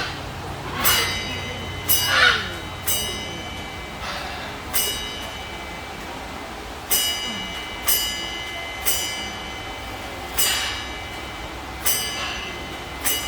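A trained macaw ringing a small bell about ten times, roughly one strike a second with a pause midway. It is counting out the answer to 4 plus 7, and each strike rings with a clear, bright tone.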